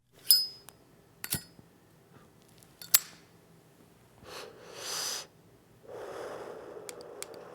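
Three sharp metallic clicks with a brief ringing tone, typical of a Zippo lighter's lid, then two long breathy rushes of air like a person drawing in and blowing out smoke.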